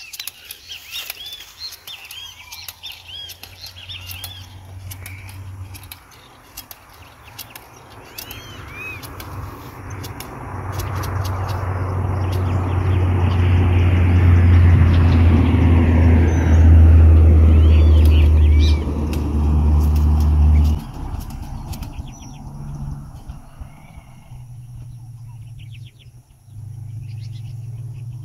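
Birds chirping, while a motor vehicle's engine builds to a loud drone through the middle and then drops off suddenly about three-quarters of the way through; a fainter low engine hum continues near the end.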